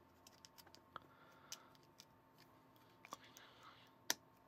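Faint, sparse clicks of small plastic Lego pieces being handled and pressed together, with one sharper click near the end.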